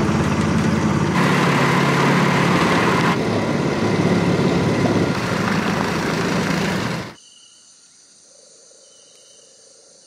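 A small boat's motor running steadily, cutting off suddenly about seven seconds in. After that, faint steady chirring of night insects.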